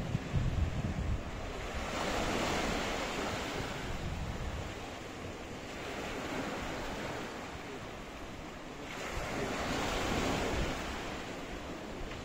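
Sea waves washing on the shore, swelling twice, with wind gusting on the microphone in the first moments.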